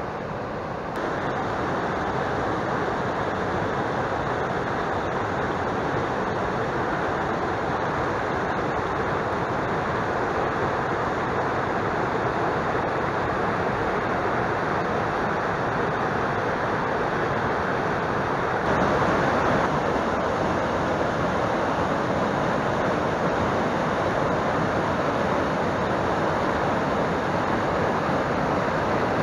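Whitewater mountain stream rushing steadily over boulders. It gets louder about a second in and again about two-thirds of the way through.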